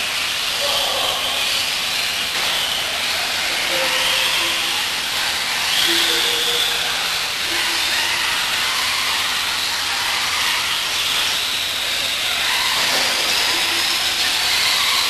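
Several electric RC off-road buggies racing together: a steady hiss of motors and drivetrains with a high whine that rises and falls in pitch as the cars accelerate and slow through the corners.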